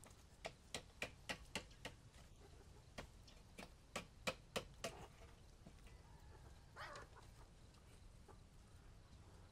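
Faint sharp taps in two quick runs of about three a second, then a chicken clucks briefly about seven seconds in.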